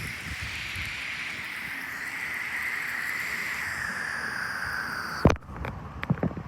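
Thunderstorm wind and rain rushing steadily at gust strength. About five seconds in it cuts off at a sharp click, leaving a few faint knocks.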